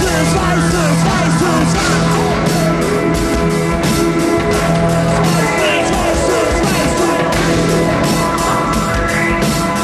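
Live band playing an instrumental stretch of the song: a steady drum beat under held chords, with sliding pitched lines over them.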